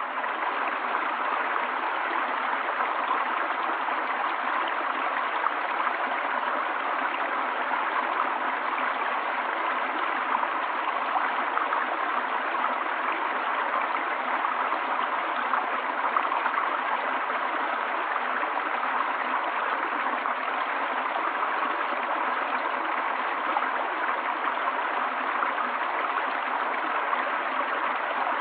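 A forest stream running steadily over rocks, a constant rushing and gurgling of water.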